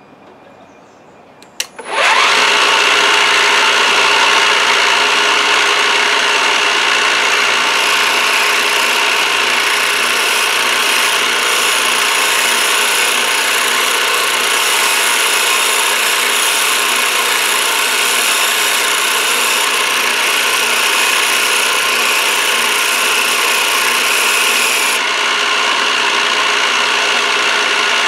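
Milling machine end mill cutting a copper bar. After a single click about a second and a half in, the cut starts and runs loud and steady with several steady tones, the high hiss easing a little near the end.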